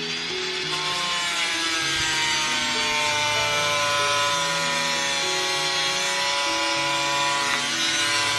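Handheld electric power tool cutting into wood, its motor whining steadily with the pitch sagging a little under load. Background music with slow low notes plays underneath.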